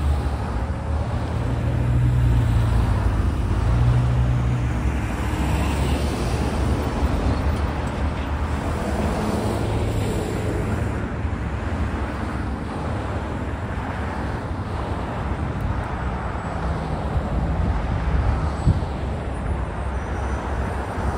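Highway traffic passing at speed: tyre and engine noise from cars and trucks, with a heavy truck's low engine drone loudest in the first few seconds.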